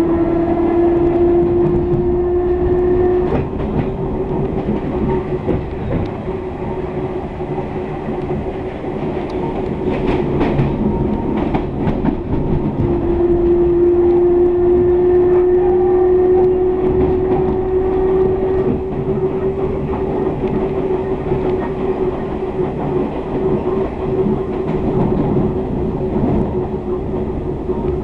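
Electric train's traction motors whining, the pitch slowly rising as the train gathers speed, over a steady running rumble. A few sharp clicks of the wheels over rail joints come near the middle.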